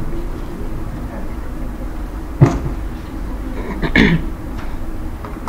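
A man coughing sharply about two and a half seconds in, then clearing his throat about a second and a half later, over a steady low background hum.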